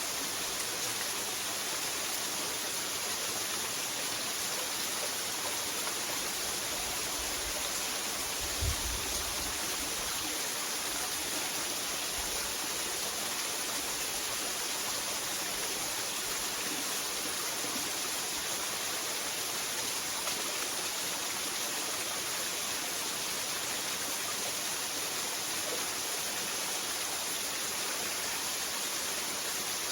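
Waterfall rushing steadily, an unbroken hiss of falling water. A brief low thump about nine seconds in.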